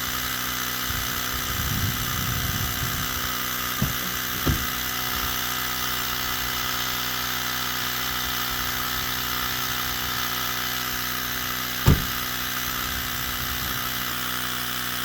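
Small portable tire inflator running steadily, slowly pumping up a flat tire. A couple of knocks come about four seconds in, and a sharper one near twelve seconds.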